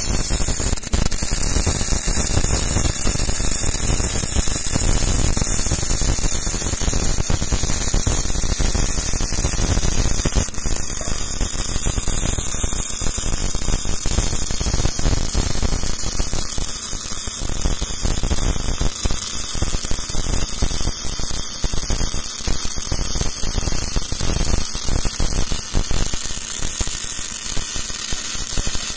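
MIG (gas metal arc) welding arc laying a bead on structural steel, a steady crackling buzz.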